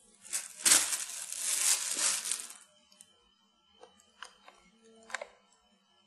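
Plastic bag crinkling and rustling for about two seconds, then a few faint light taps and clicks.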